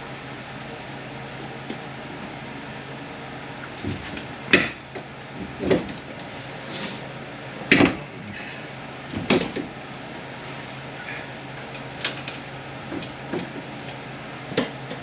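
Metal clunks and knocks, about seven spread a second or two apart, as a new front wheel hub bearing assembly is handled and set into the steering knuckle, over a steady low hum.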